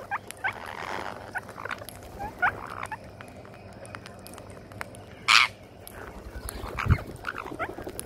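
A flock of rose-ringed parakeets feeding on rice grains on concrete: scattered light pecking clicks and short chirping calls throughout, with one loud harsh squawk about five seconds in and a low thump just before seven seconds.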